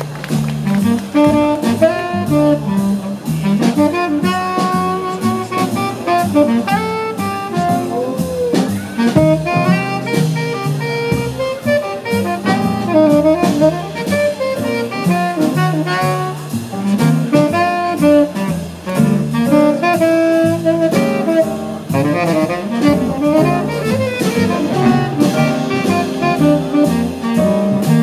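Big band playing jazz live: a saxophone solo over double bass, drums and keyboard, with the band's horn sections behind it.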